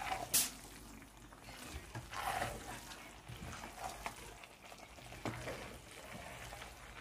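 Wooden spoon stirring cooked rice in a metal pot: soft rustling scrapes of the rice with a few sharp knocks of the spoon against the pot, the loudest about half a second in and another about five seconds in.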